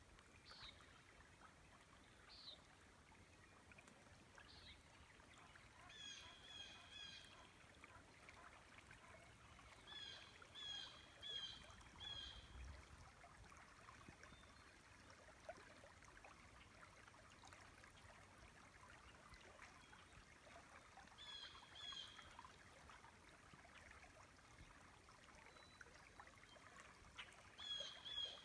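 Faint river flow with a bird calling: a few single short high notes, then several bursts of about four quick repeated notes.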